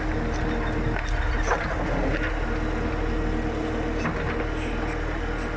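JCB 3CX backhoe loader's diesel engine running steadily while the backhoe digs, heard from inside the cab, with a few short knocks and clanks about a second in and again near four seconds.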